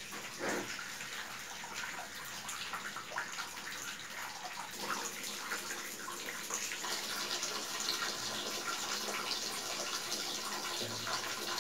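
Water running and splashing from a panel radiator's opened bleed valve into a plastic bucket below, steady and slightly louder toward the end, as the radiator is bled until no air hiss is left.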